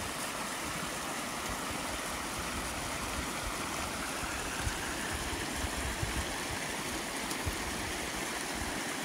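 Mountain stream rushing, a steady even wash of water noise.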